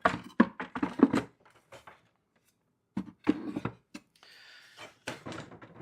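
Wooden hive frames knocking and clattering against the cedar hive box as they are set back in, with a short scrape of a frame sliding into place about four seconds in.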